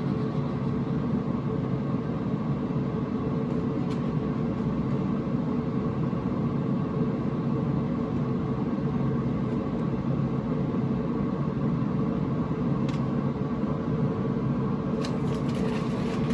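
Pit Boss pellet grill's fan running with a steady hum and rumble, with a few faint clicks near the end.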